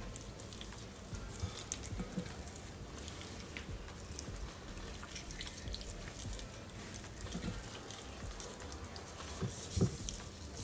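Bare hands working seasoning into raw fish pieces in a glass bowl: faint wet squelches and small clicks, with one louder knock near the end.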